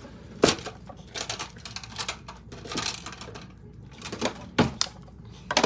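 Scattered clicks, taps and light rustles of small objects being handled, about a dozen irregular knocks with the loudest about half a second in and near the end.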